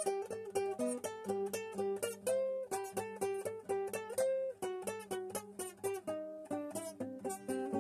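Acoustic guitar played solo: a quick line of picked single notes, with one note recurring between the others.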